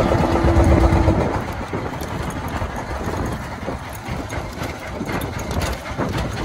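Small fishing boat's engine idling with a steady low rumble. A hooked fish splashes at the surface beside the hull in the first second, as the hook line is hauled in by hand.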